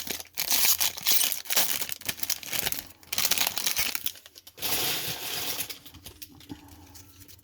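A baseball card pack's wrapper being torn open and crinkled: crackling, tearing noise in two spells, the first for about three seconds and the second around five seconds in, then dying down.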